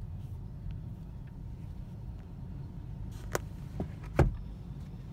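Low, steady engine and road rumble of a car heard from inside its cabin in slow traffic, with three short sharp clicks a little past three seconds in, the last one loudest.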